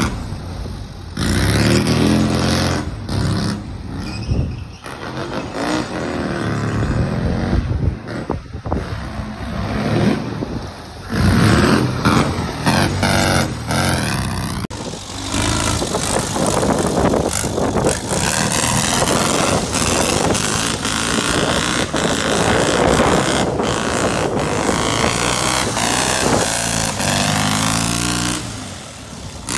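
Rail buggy engine revving up and down repeatedly as the buggy is driven hard. About halfway through the sound changes abruptly and turns into a steadier rush of engine and noise.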